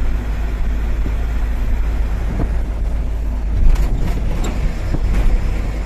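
Diesel engine and road noise inside the cab of a Tata 1512 truck at highway speed: a steady low rumble, with a few sharp knocks a little past the middle.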